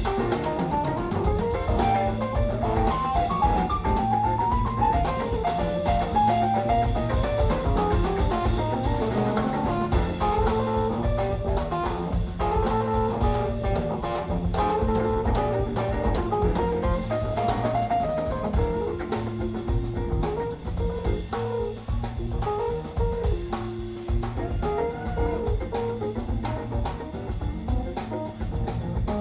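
Background music: an instrumental jazz-blues tune with guitar melody, bass and drum kit at a steady beat.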